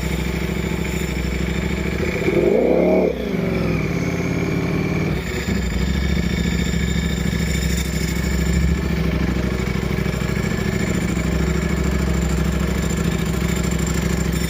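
Ducati Panigale V4R's 998 cc V4 engine through an FM Projects titanium racing exhaust, idling, with one quick rev that rises and falls about two seconds in before it settles back to a steady idle.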